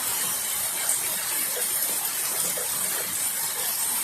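Steady rain, with roof runoff gushing out of a gutter into a rain barrel.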